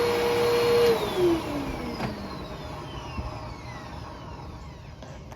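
Hoover WindTunnel T-Series upright vacuum cleaner running steadily, then switched off about a second in, its motor whine falling in pitch and fading as it spins down.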